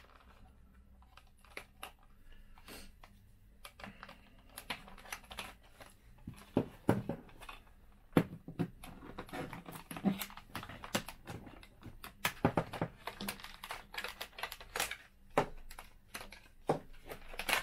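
Plastic clicks, snaps and light knocks from the latches and housing of a Citroën C4 instrument cluster being unclipped and pried apart. The clicks are sparse at first and come thick and irregular from about six seconds in.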